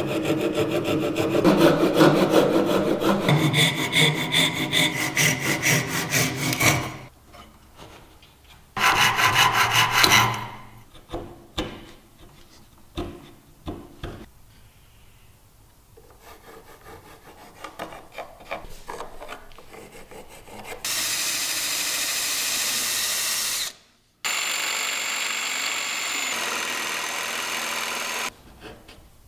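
Japanese-style pull saw cutting a small block of wood in quick, even strokes for the first several seconds, then a short burst of sawing. Then quieter scraping and light taps as a chisel pares the wood. Near the end an electric jigsaw runs steadily through a board with a high motor whine, stopping for a moment once.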